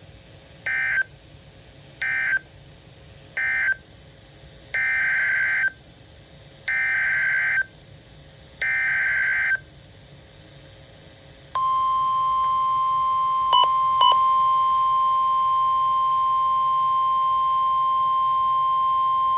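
NOAA Weather Radio alert signalling: three short, harsh data bursts (the end-of-message code closing the previous warning), then three longer SAME header data bursts announcing the next flash flood warning. About eleven seconds in, the steady single-pitch 1050 Hz weather radio warning alarm tone starts and keeps going, with two brief clicks over it.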